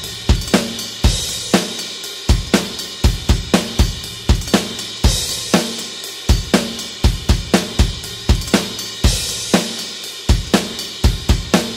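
Rock drum kit playing a steady groove at 120 bpm with no other instruments: kick and snare hits with hi-hat and cymbal crashes, the pattern repeating every couple of seconds.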